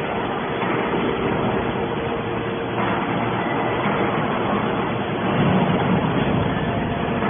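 Can baler machine running: steady mechanical noise with a faint steady hum, swelling slightly near the end.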